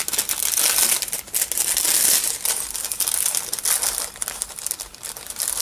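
Clear plastic packet crinkling continuously as it is handled and opened, a dense crackle of plastic with many small snaps.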